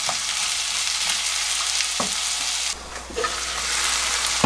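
Sliced onions sizzling in oil in a frying pan as they are stir-fried until they wilt, with a few sharp knocks of the spatula and wooden spoon against the pan. The sizzle dips briefly a little past halfway, then carries on.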